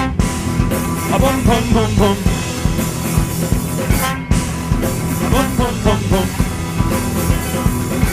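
Band music with drums keeping a steady beat and a melody line that bends in pitch.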